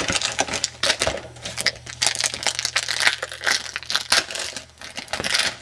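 Football trading cards being handled and flipped through by hand: dense crinkling and rustling with quick sharp flicks.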